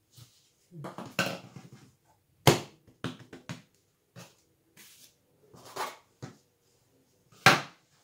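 Handling bread dough and utensils on a kitchen countertop: irregular knocks, thumps and rustling, with two sharp knocks, about two and a half seconds in and near the end, the loudest.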